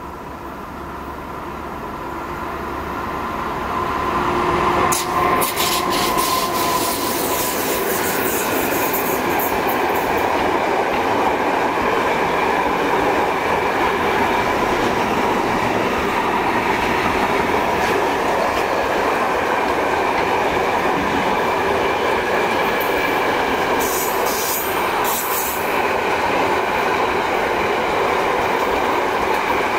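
Electric locomotive and long container freight train approaching and then passing close by. The sound grows over the first few seconds, with sharp clicks as it draws level. It then settles into a steady rumble of wagon wheels on rail with a thin wheel squeal tone and occasional rail clicks.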